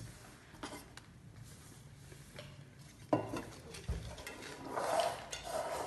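Tabletop handling sounds: a few light clicks, then two knocks as a small tin cup of paper lots is picked up and set down, followed by paper rustling as a rolled-up lot is unrolled.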